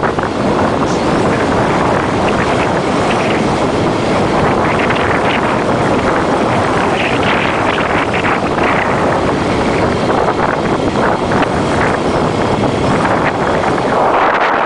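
Steady rushing wind on the microphone mixed with road noise, as from a car driving along with the window open.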